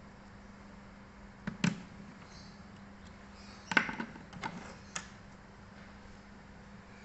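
A few light clicks and knocks of a screwdriver and small laptop parts being handled: two about a second and a half in, then a quick cluster around four seconds and single clicks just after, over a faint steady hum.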